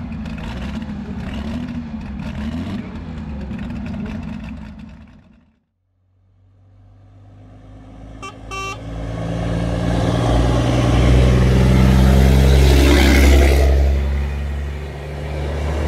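The Matrix pulling tractor's twin Cummins six-cylinder engines running. After a sudden cut, a lorry's horn sounds a short toot and a close, loud lorry engine and road noise drone builds up as it drives alongside.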